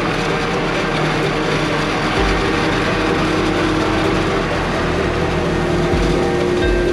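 Steady running of heavy harvest machinery, most likely the New Holland FR550 forage harvester working through maize, with several steady engine tones under a dense mechanical noise.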